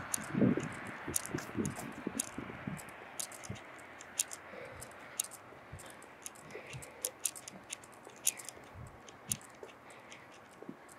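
Quiet night street ambience: a faint hiss of distant traffic that fades over the first few seconds, with soft low thumps in the first three seconds and sharp, scattered clicks throughout.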